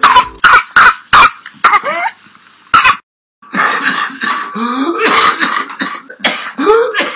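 Whooping cough (pertussis): a run of quick, dry coughs, about four in the first second and a half, each fit followed by a rising, pitched whooping intake of breath. A second fit of coughing and whooping follows after a short break.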